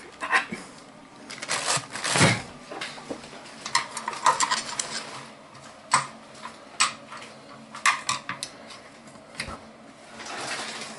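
Metal hand tools clinking and tapping: a wrench and screwdriver working at the steel mounting flange of an electric water heater's heating element, with scattered sharp clicks and short metallic rings. A brief soft hiss comes near the end.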